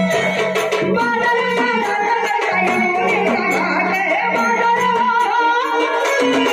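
Live Marathi gavlan folk song: a dholki drum keeps a steady beat under a keyboard melody, with a woman singing.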